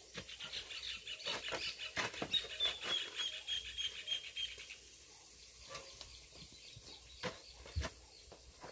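A bird chirping in a quick, high run for about the first four and a half seconds, amid scattered knocks and scrapes.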